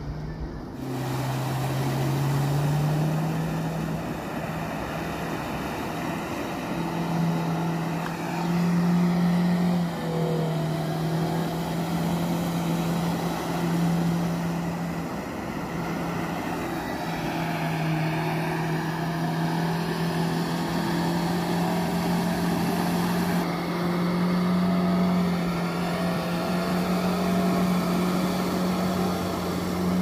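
Mahindra Thar 4x4's engine running under load as it churns through a flooded, muddy field, its note rising and falling with the throttle.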